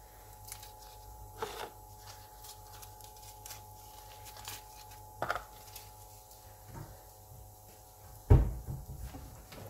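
Light knocks and clicks of kitchen utensils and cookware being handled while cooking, with one heavier thump a little after eight seconds in, over a faint steady hum.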